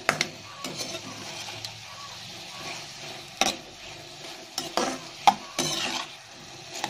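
Cauliflower florets sizzling in oil in a steel kadai while a spatula stirs them, with irregular sharp scrapes and knocks of the spatula against the pan, the loudest about three and a half and five seconds in.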